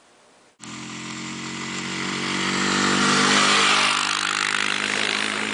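A motor vehicle's engine running at a steady pitch with a rushing hiss, starting suddenly about half a second in, growing louder to a peak around three and a half seconds, then easing a little.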